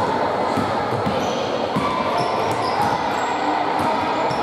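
A basketball being dribbled, bouncing repeatedly on an indoor court floor, with faint shouts of players in the background.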